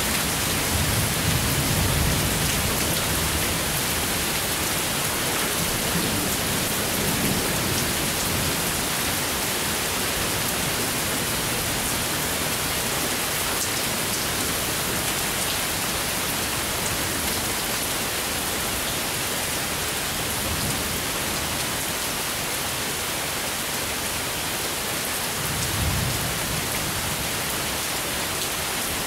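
Steady rain falling during a thunderstorm, with low thunder rumbling a second or two in and again briefly near the end.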